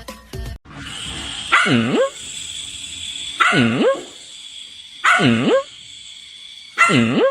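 A dog barking four times at an even pace, each bark drawn out and dipping and then rising in pitch, over a steady high hiss.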